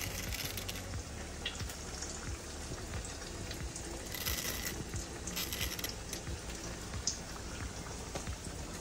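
Soft crackling and light scraping as a knife taps and runs over the crisp breaded crust of fried tofu, with a couple of brighter scrapes about four and five and a half seconds in.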